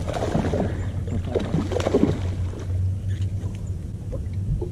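Hooked bass thrashing and splashing at the water's surface for about two seconds, over a steady low hum.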